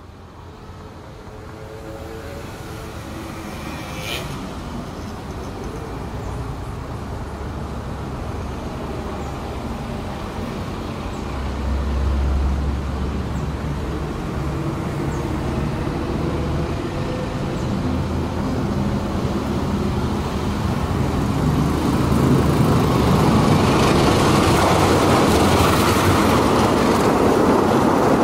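Diesel-hauled passenger train approaching, its locomotive's engine rumble growing steadily louder, then the carriages rolling past at speed with wheel-on-rail noise.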